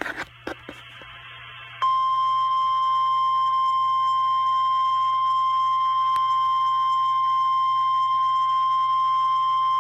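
NOAA Weather Radio 1050 Hz warning alarm tone: a single steady high-pitched tone that starts about two seconds in, after a few clicks over faint radio static. It signals that a warning broadcast, here a tornado warning, follows.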